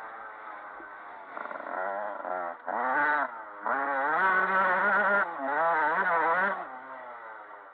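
Motocross bike engine heard up close from a camera mounted on the bike, revving hard in repeated bursts with the pitch wobbling up and down. The throttle shuts off briefly twice, a little under 3 s in and again near 3.5 s. The longest, loudest pull comes in the second half, and the engine eases back near the end.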